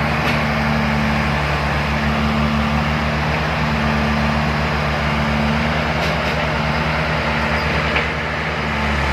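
Heavy diesel engine running steadily under load, with a fast low pulse from its firing; its note shifts near the end.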